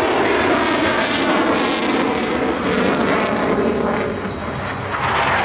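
Jet noise from Boeing F/A-18 Super Hornets flying past: a loud, steady rushing roar that eases a little past the middle and swells again near the end.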